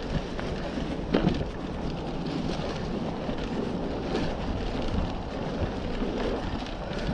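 Mountain bike rolling fast down a dirt trail covered in dry leaves: a steady rush of tyre noise with wind on the microphone, and a few knocks from the bike over bumps in the first second or so.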